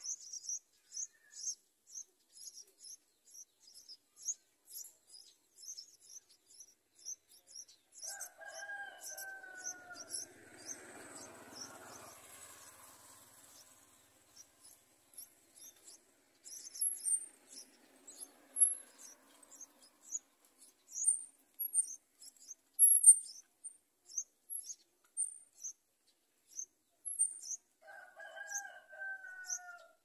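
Yellow-vented bulbul nestlings begging in a thin, high chirping that repeats two or three times a second, louder and sharper about halfway through. A lower, falling call sounds about eight seconds in and again near the end.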